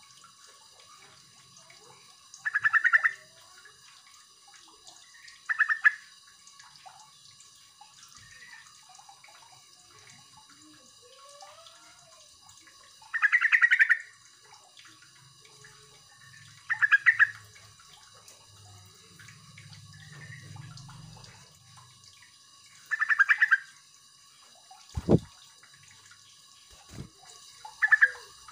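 Yellow-vented bulbul giving short, rapid, bubbly chattering calls: six loud bursts of half a second to a second each, several seconds apart. A single sharp knock sounds a few seconds before the end.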